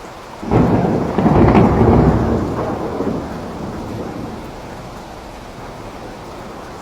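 Steady rain, with a sudden clap of thunder about half a second in that rumbles and dies away over the next few seconds.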